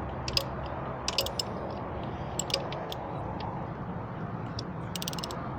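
Scattered metallic clicks from a socket wrench working the alternator's 12 mm bolt loose, with a quick run of clicks near the end. A steady low background rumble runs underneath.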